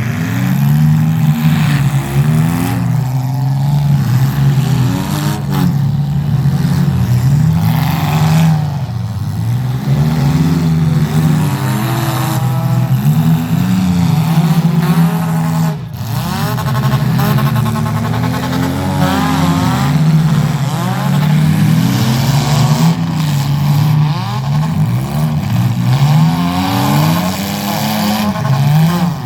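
Several demolition derby car engines running and revving at once, their pitches rising and falling over one another without a break.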